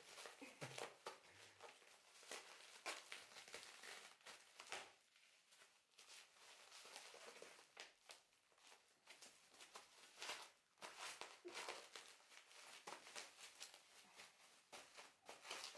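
Faint crinkling and rustling of a plastic bag being handled and mouthed, in scattered small crackles.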